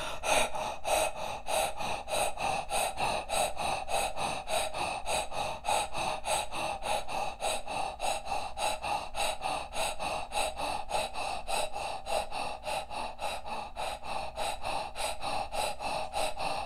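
A woman breathing quickly through a rounded mouth, inhale and exhale of equal length in a steady, even rhythm: a paced breathwork exercise.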